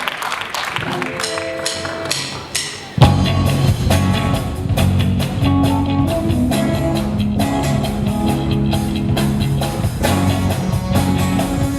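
Live rock band starting a song: after a few cymbal strikes and held notes, the full band comes in suddenly about three seconds in with drum kit, bass and electric guitar playing a steady rock beat.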